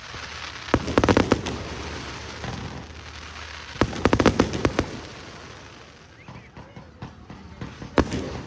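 Fireworks bursting: a quick volley of sharp cracks about a second in and another about four seconds in, each trailing off in a fading rumble, then another sharp bang near the end.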